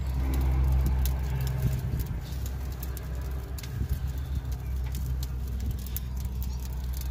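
Electric rotisserie motor humming steadily as it turns a chicken on the spit inside a drum smoker, with scattered small clicks and ticks over the hum.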